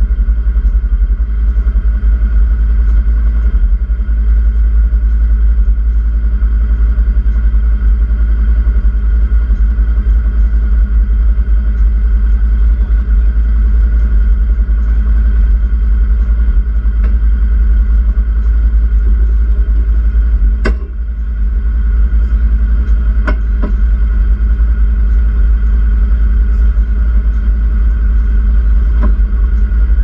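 Open side-by-side UTV driving at a steady pace: engine drone under heavy wind rumble on the microphone. A few sharp knocks come about two-thirds of the way through and once near the end.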